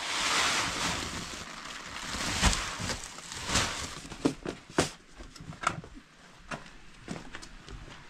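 Dry grain poured and scooped into a cloth sack, a rushing hiss in swells, followed from about four seconds in by a run of sharp clicks and knocks from the scoop and tin being handled.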